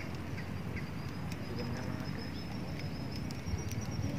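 Outdoor background: a steady low rumble with faint, scattered bird calls and a thin high-pitched whine over it.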